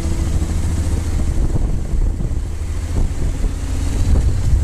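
Deep, steady rumble of wind and motorcycle engine noise as the bike pulls away and picks up speed. A held note of background music fades out about a second and a half in.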